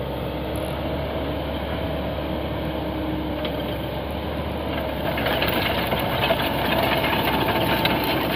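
Cat 307D compact excavator's diesel engine running steadily near idle while the boom and bucket are worked, growing louder about five seconds in.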